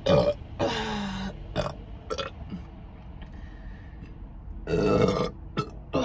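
A woman burping about five times: short burps, one longer, lower burp about a second in, and a last one near the end. They are burps that she feels are stuck and hard to get up.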